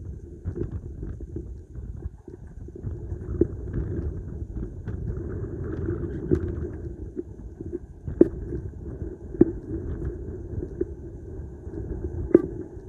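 London Underground 1972 stock Bakerloo line train pulling into the platform. There is a steady low rumble that grows louder over the first couple of seconds, with a few sharp clicks from the wheels on the track.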